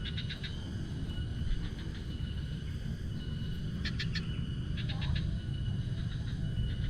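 Outdoor nature ambience: a small animal gives short, rapid clicking trills three times, at the start, about four seconds in and about five seconds in, over a steady thin high tone and a low rumble.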